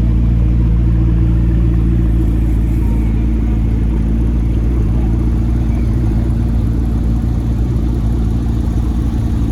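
A car engine idling steadily close by, a constant low engine note with no revving.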